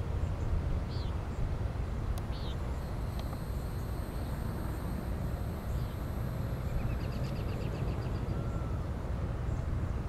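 Neocicada hieroglyphica cicada calling with a thin, high, steady buzz that starts about three seconds in and stops about eight seconds in, over a steady low rumble. Short high chirps recur every second or so, and a quick run of clicks comes near the end.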